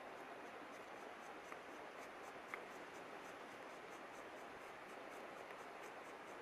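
Faint, steady rushing of a river, with a few small faint ticks over it, a sharper one about halfway through.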